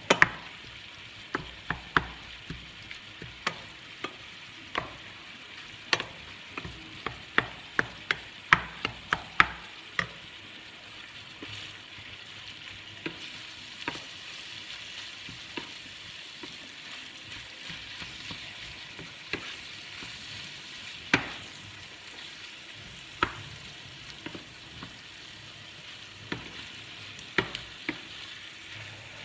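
Ground beef sizzling as it browns in two pans, with wooden spoons stirring and knocking against the pans: many sharp knocks in the first ten seconds, fewer later.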